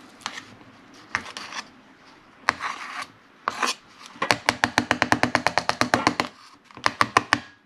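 Handling noise from mashed potatoes being spread in an aluminum meal tray: scattered rubbing and scraping, then a quick run of rapid taps, about ten a second for some two seconds, and a few more near the end.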